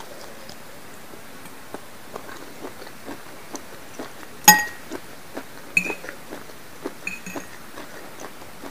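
Close-miked chewing and small wet mouth clicks of someone eating squid ink pasta, with a sharp ringing clink of a metal fork against the bowl about four and a half seconds in, the loudest sound, and lighter fork clinks near six and seven seconds.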